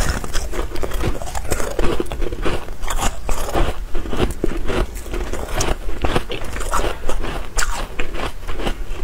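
A person biting into and chewing a packed block of freezer frost: a dense run of sharp, crisp crunches, several a second, as the icy frost breaks between the teeth.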